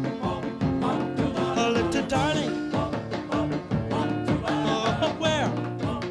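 Soundtrack music with a steady beat and a singing voice.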